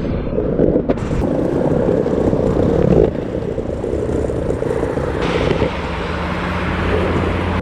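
Cruiser skateboard's wheels rolling over pavement, a continuous coarse rumble. A steady low hum joins in during the second half.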